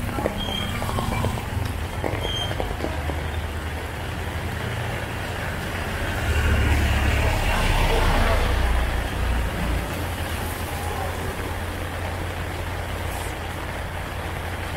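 Heavy rain falling steadily on a wet street. Around the middle, a car drives past on the wet road with a louder low rumble.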